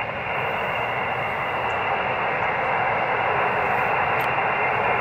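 Steady hiss of HF band noise from a ham radio receiver's speaker, confined to the narrow voice passband, with no readable signal in it between transmissions on the net.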